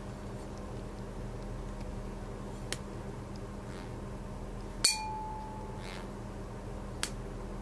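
Metal tuning fork used in ear cleaning: it is struck about five seconds in with a sharp clink, then a clear ringing tone fades away within about a second. A light metallic tick comes before the strike and another near the end, over a steady low hum.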